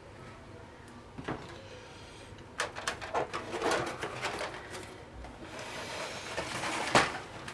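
A large plastic diorama base being slid and lifted out of its cardboard box, scraping and rustling against the card with scattered clicks and knocks, and one loud knock near the end.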